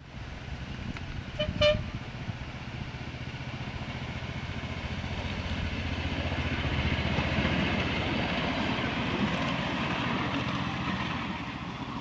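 A little train's horn gives two short toots about a second and a half in. Then its engine runs past, growing louder toward the middle and fading near the end.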